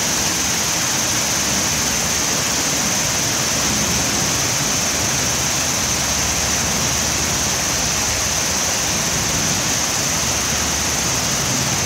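Steady, even hiss of loud noise with no change in level, with a strong high-pitched band in it.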